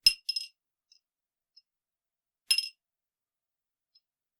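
A coin dropped twice onto a bowl, each drop a bright, ringing clink with a quick little bounce; the second drop comes about two and a half seconds after the first.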